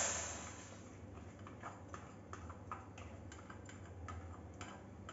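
Roasted vermicelli being tipped from a crinkling plastic bag into a steel pot of boiling milk: a short rush of noise at the start, then scattered small clicks and crackles from the bag, over a low steady hum.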